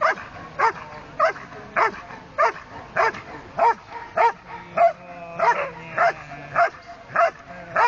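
A Belgian Malinois barking in an even, unbroken rhythm, about one bark every 0.6 s, some fourteen barks in all.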